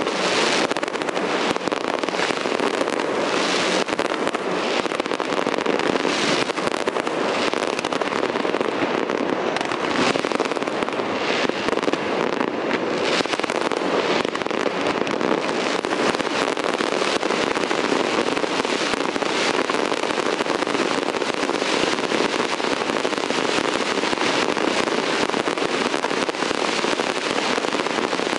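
Aerial fireworks display: a continuous, dense din of bursting shells, with frequent sharper bangs standing out all the way through.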